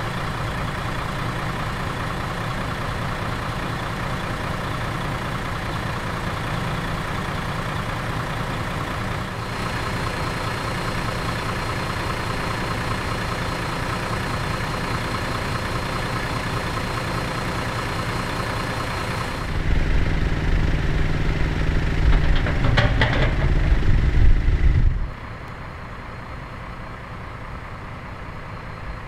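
Heavy truck's diesel engine idling steadily. For about five seconds in the last third it is louder and deeper, with a few knocks, before dropping to a quieter steady hum.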